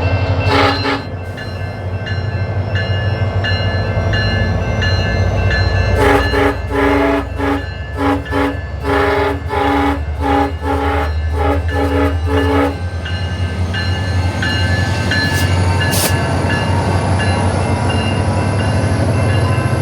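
SunRail locomotive air horn sounding one short blast near the start. About six seconds in it plays a rapid run of about a dozen short, choppy blasts lasting some six seconds, a horn show. A steady low rumble from the diesel locomotive runs underneath.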